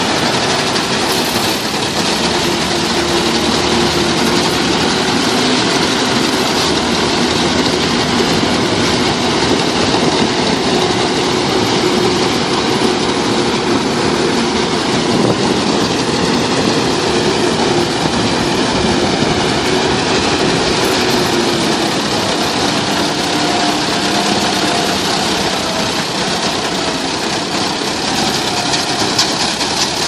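Paddy combine harvester running steadily: a loud, even mechanical noise with a faint engine hum that wavers slightly in pitch.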